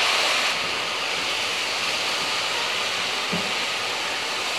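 Tomato purée sizzling in hot oil and spices in a frying pan: a steady, loud sizzle, a little stronger in the first half second.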